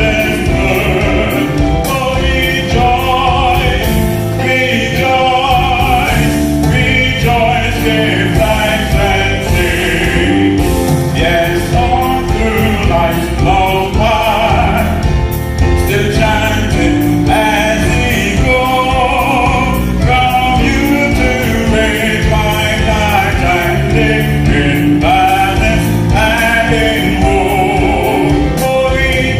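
A man singing a gospel song into a handheld microphone over an accompaniment with a steady beat.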